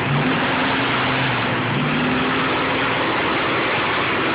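Classic Ford Mustang's V8 engine idling steadily, heard close to the open engine bay.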